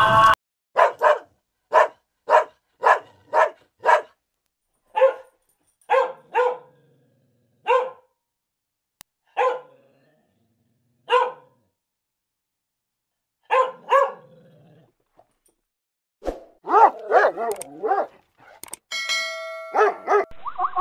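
A large German Shepherd-type dog barking, single barks spaced a second or so apart, then a quicker flurry of barks about sixteen seconds in. A short electronic chime rings near the end.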